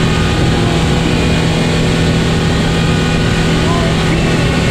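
A motorboat's engine running at a steady cruise: a loud, even drone heard from inside the boat's cabin.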